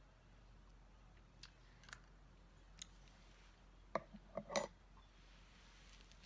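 Metal spoon clinking against a white ceramic coffee mug: a few faint clicks, then a quick run of louder clinks about four seconds in.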